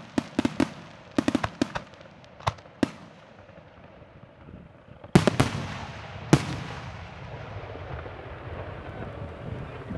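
Fireworks display: a rapid run of sharp crackling pops for the first three seconds, then two loud booms of aerial shells bursting about five and six seconds in, the first the loudest, each trailing off in a long rumble.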